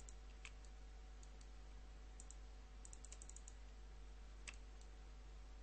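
Faint, scattered clicks of a computer mouse and keyboard, with a quick run of clicks about halfway through, over a steady low hum.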